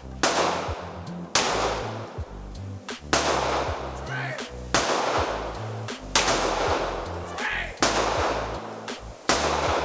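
Pistol fired shot by shot, about seven shots spaced a second or so apart, each ringing on in the echo of an indoor range. Music with a bass line plays underneath.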